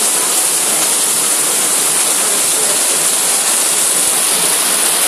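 Very heavy rain pouring down, a steady dense hiss like a waterfall.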